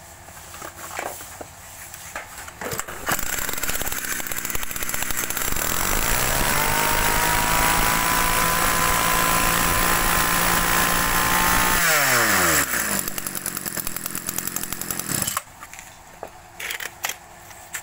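Tanaka 20cc two-stroke brush cutter engine starting about three seconds in and revving up, then held at high, steady revs. About twelve seconds in it drops back with a falling pitch, runs on briefly and cuts off suddenly.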